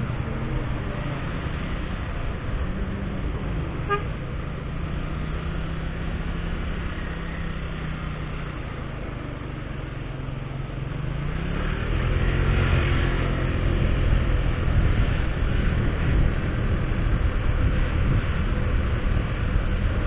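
Motorcycle engine running in slow city traffic, with a short horn toot about four seconds in. About eleven seconds in the engine revs up as the bike speeds up, and the engine and road noise get louder from then on.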